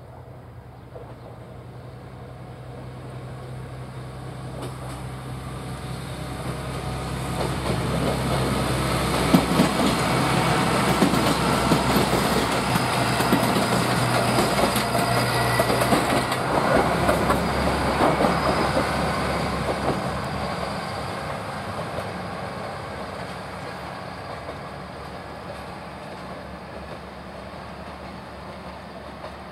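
Two-car Tsugaru Railway diesel railcar set passing close: the diesel engine hum grows louder as it approaches, the wheels clack over the rail joints as it goes by, and the sound fades as it moves away.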